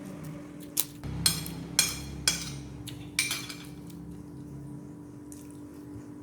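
Dishes and utensils clinking in a kitchen: about five sharp knocks with short metallic ringing in the first few seconds, then quieter handling over a steady low hum.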